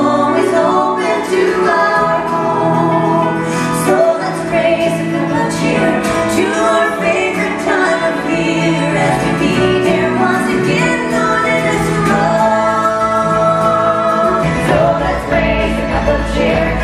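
A live folk band performing a Christmas song: women's voices singing in harmony over acoustic guitar, banjo and fiddle. A low rumble comes in near the end.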